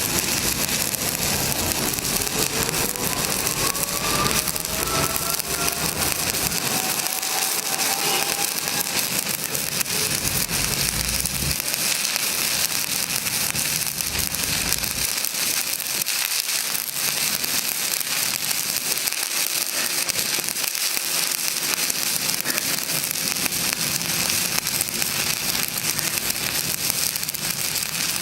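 Electric arc welding on a pipe joint: a steady, continuous crackling sizzle from the arc as a weld bead is run.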